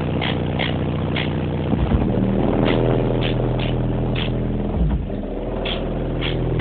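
Bass-heavy music played loud through a truck's Audiopipe subwoofer system: sustained low bass notes that change pitch every couple of seconds, with light ticks like a hi-hat above them.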